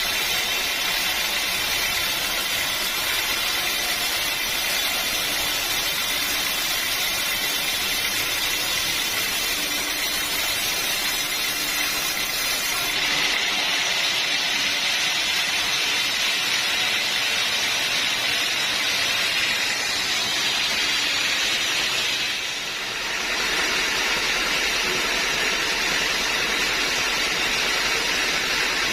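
Sawmill saw running steadily through a hard acacia log, a continuous noisy machine sound. About halfway through, the sound changes and grows brighter. It dips briefly a few seconds later.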